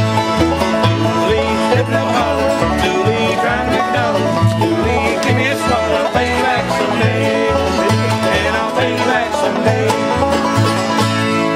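Bluegrass band playing: a five-string banjo picking rapid notes over mandolin and acoustic guitar, with an upright bass plucking a steady line that alternates between two notes about twice a second.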